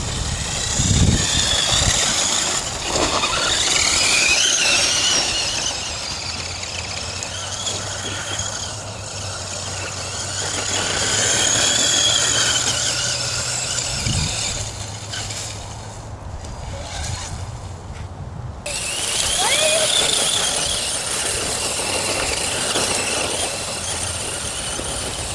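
Redcat Volcano EPX 1/10-scale electric RC monster truck's motor and gears whining, the pitch rising and falling over and over as the throttle is worked, with a short lull about two-thirds of the way through.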